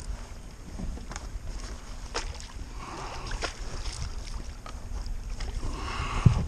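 Wind rumbling on the microphone, with scattered light knocks and rustles of handling on a fishing kayak.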